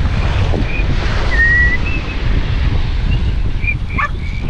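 Wind buffeting the microphone over breaking surf, with a girl whistling a string of short, high notes, one held a little longer and rising slightly about a second and a half in.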